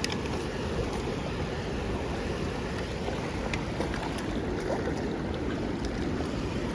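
Steady wind and water noise, with a few faint ticks.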